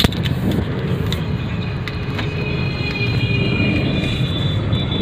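Steady vehicle and road noise from a moving ride, with scattered light clicks and a high steady whine from about two seconds in to the end.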